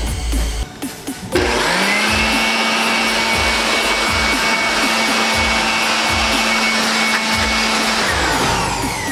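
Small electric air blower switched on, its motor whining up to speed and running steadily with a loud rush of air, then winding down near the end.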